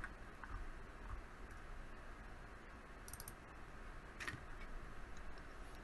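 Faint computer mouse clicks over a low room hum: a quick double click about three seconds in and a single click about a second later.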